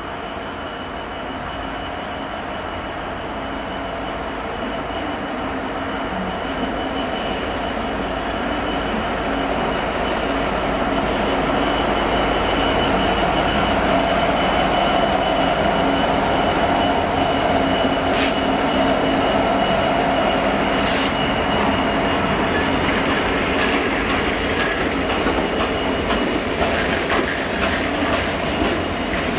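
EWS Class 66 diesel locomotive passing slowly at the head of a freight train of bogie hopper wagons, its two-stroke V12 diesel engine giving a steady drone that grows louder as it draws level. Behind it the wagons roll by with a thin, steady wheel squeal and two sharp clicks over the rail joints.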